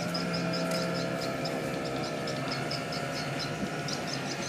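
Yamaha 250 hp four-stroke V6 outboard engine idling, a steady hum that settles in pitch early on, with a quick high ticking about five times a second.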